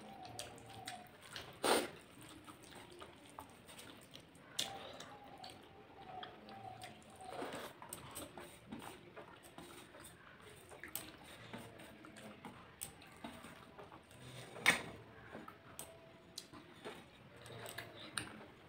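Eating rice by hand from a steel plate: fingers squishing and mixing rice with curry, with soft wet chewing and scattered sharp clicks. The clicks are loudest once a couple of seconds in and once near the end.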